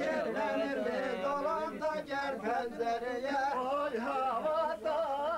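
Several men's voices singing together in a chant, their pitches wavering and overlapping.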